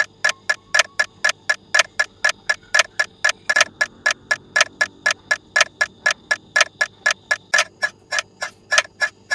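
Ticking clock, a fast, even tick-tock of about four to five ticks a second, used as a waiting sound effect.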